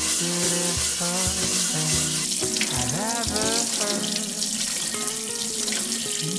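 A scrubbing pad rubs coarse salt over a wooden cutting board, then tap water runs and splashes over a wooden board in a stainless steel sink. Instrumental music plays throughout.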